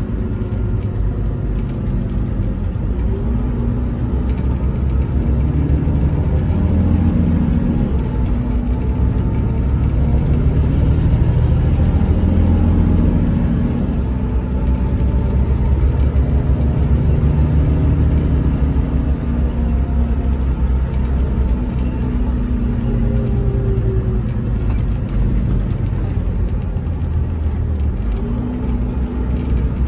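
Volvo B11RT coach's rear-mounted 11-litre six-cylinder diesel engine and road rumble heard from inside the passenger saloon, the engine note rising and falling several times as the coach drives.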